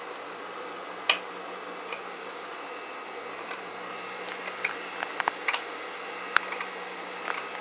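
Scissors snipping through coat fabric to cut open a welt pocket: a sharp click about a second in, a quick run of snips in the middle and a few more near the end, over a steady hiss.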